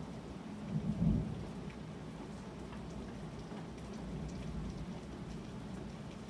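Steady rain with scattered drips, and a low rumble of thunder swelling about a second in and dying away.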